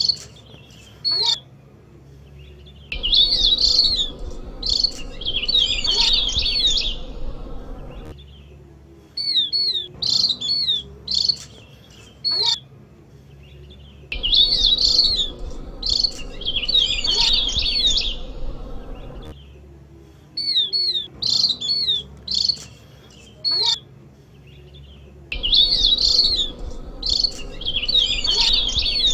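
Opior jawa (Javan grey-throated white-eye) lure call, looped: a few short, high chirps, then a longer rapid twittering phrase, in a cycle that repeats about every 11 seconds.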